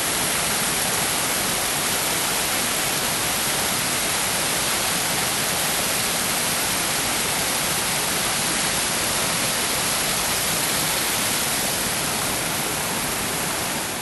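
Small waterfall pouring into a rocky pool, heard up close: a steady, loud rush of falling water.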